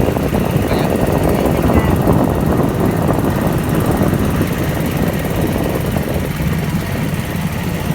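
Boat motor running steadily under way.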